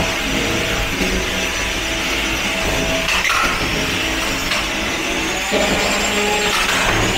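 Antweight drum-spinner combat robot fighting: its polypropylene drum weapon spins with a high motor whine that climbs in pitch partway through. There are a few sharp hits as the drum strikes the opposing wedge robot.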